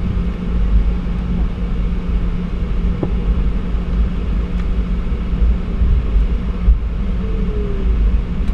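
Boeing 717-200 cabin noise during the landing rollout as it turns off the runway: a continuous low rumble from the gear rolling on the pavement under a steady low hum.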